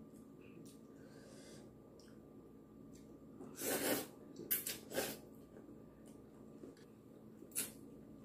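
A person slurping ramen noodles from a bowl of soup: a long slurp about halfway through, two quick ones right after it, and another near the end, over a faint steady hum.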